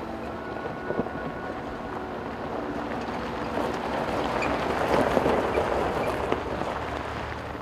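Jeep Wranglers driving past on a gravel road: engine and tyres crunching on gravel grow louder to a peak about five seconds in as the lead Jeep passes close, then ease off.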